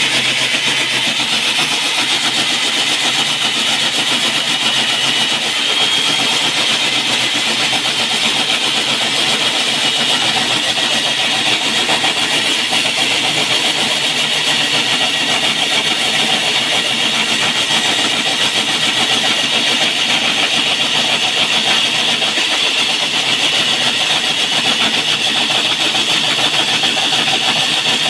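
Electric diamond core drill running steadily while boring a hole through a concrete slab, a constant high-pitched grinding sound with no breaks.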